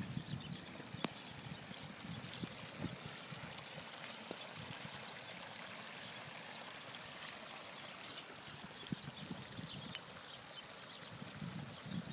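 Steady rain with trickling, running water, a soft even hiss with small patters, and one sharp tick about a second in.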